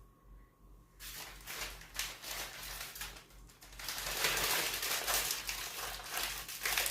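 Food packaging crinkling and rustling as it is handled. The rustling starts about a second in and grows louder from about four seconds in.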